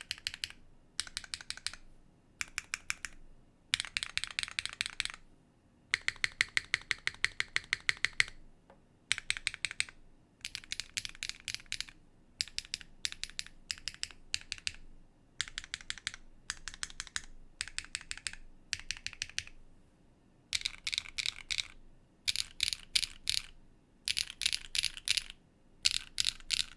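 Typing on a Neo65 mechanical keyboard with an aluminium plate and Keygeek Peach Cheesecake switches. The keystrokes come in quick bursts with short pauses between them, and there is one longer fast run about six seconds in.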